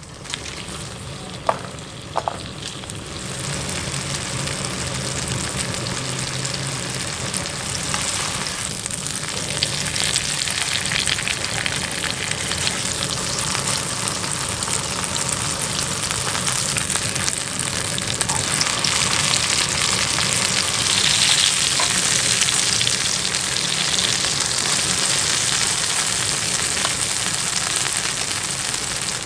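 Beef steak sizzling in hot fat in an aluminium camping frying pan over a wood stove, a steady frying hiss that grows louder after about three seconds and again near ten seconds. Two light clicks of the tongs against the pan come about one and a half and two seconds in.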